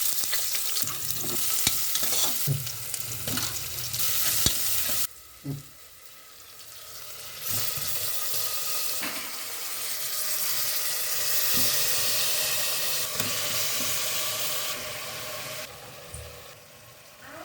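Chicken frying in hot oil, sizzling, with scattered clinks of a utensil in the pan. The sizzle drops away about five seconds in and comes back loud a couple of seconds later.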